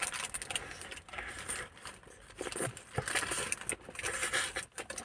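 A person chewing a bite of burger close to the microphone, with the crinkle of its paper wrapper, in irregular bursts of soft crackling.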